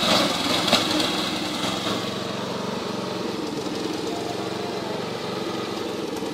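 Lawn mower engine running steadily, a little louder for the first two seconds, with one sharp knock under a second in.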